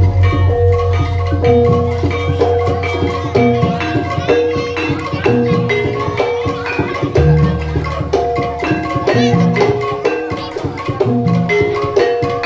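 Live Javanese jaranan gamelan accompaniment: tuned metal percussion playing quick repeated notes over drumming, with deep low gong notes at the start and again about seven seconds in.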